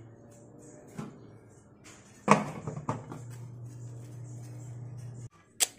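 Aluminium steamer pot and its lid clanking as a plastic-wrapped spam mould is lifted out and the lid put back: one sharp knock about two seconds in and a lighter clank just after, over a steady low hum.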